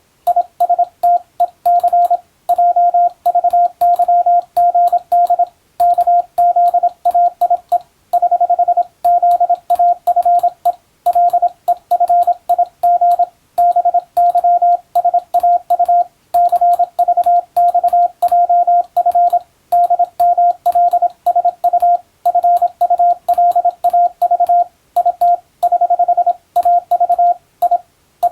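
Morse code (CW) tone of about 700 Hz keyed in short and long beeps, grouped into characters with brief pauses between groups, at a brisk practice pace.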